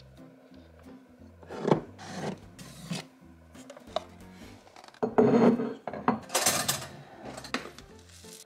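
A plastic container of rolled oats being handled as it is taken from a kitchen cupboard: knocks and rubbing, then a louder stretch of dry rustling and scraping as the lid is worked and the oats are stirred with a spoon. Soft background music plays underneath.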